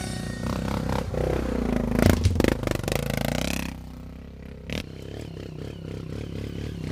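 Off-road trail motorcycle engine running and revving, with clattering and scraping over rough ground. It is loudest about two to three and a half seconds in, with a sharp knock near five seconds.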